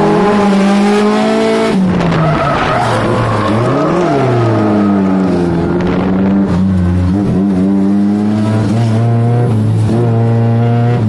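Drift car engine held at high revs, its note dropping and climbing again a few times as the car slides, with tyres skidding under it. Mostly heard from inside the cockpit.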